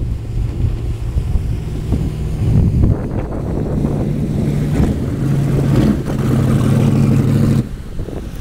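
Speed skiff's engine running hard as the boat passes close by, its pitch shifting up and down several times, with wind noise on the microphone. The loud engine note falls away suddenly near the end.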